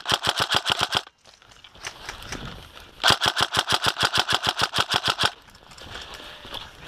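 Tokyo Marui HK416 DEVGRU airsoft electric rifle firing two full-auto bursts at about a dozen shots a second: a short burst of about a second at the start, then a longer burst of about two seconds beginning about three seconds in.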